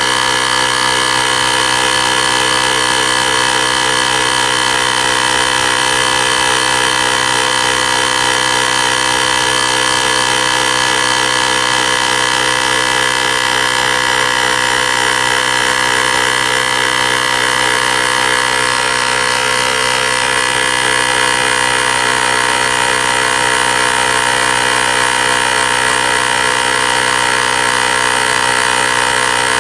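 Portable 12V air compressor of a jump starter running continuously, a steady fast-pulsing motor and pump drone that shifts slightly in tone about twenty seconds in.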